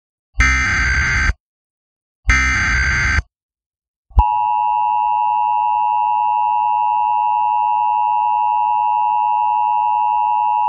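Emergency Alert System broadcast: two harsh, buzzing digital data bursts (the SAME header), each about a second long and a second apart, then about four seconds in the loud, steady two-tone attention signal begins and holds.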